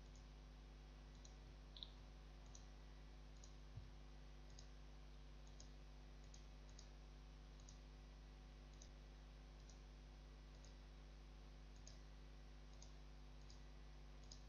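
Faint computer mouse clicks, irregular and roughly one a second, as mesh nodes are picked one by one.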